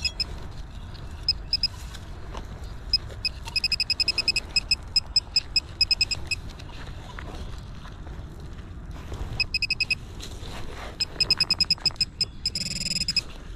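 Handheld metal-detecting pinpointer beeping in runs of rapid short high-pitched pulses, then a brief steady tone near the end, as it is probed through loose soil homing in on a small buried metal target. Low rustling of dirt and gloved hands underneath.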